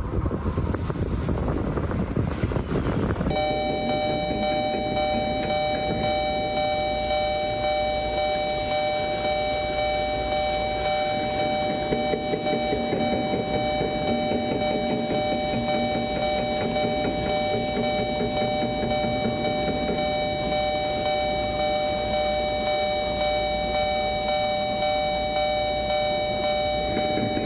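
A passing train's rumble for about the first three seconds, then a level-crossing warning bell ringing steadily on several clear bell tones.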